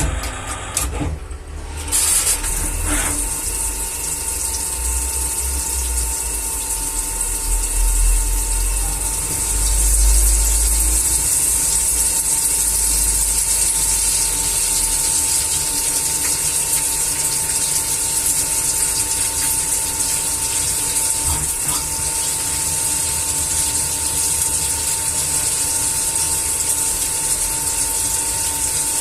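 CNC machine's motors running steadily: a constant mechanical whine with a single held tone and a high hiss, which comes in fully about two seconds in.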